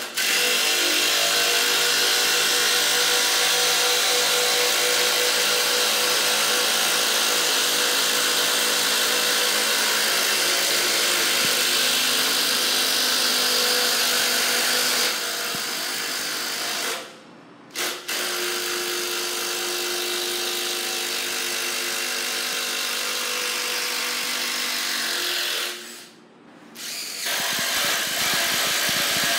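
DeWalt Atomic DCF809 brushless impact driver hammering long screws into a wooden post, running in long stretches with two short pauses, one past the halfway mark and one near the end.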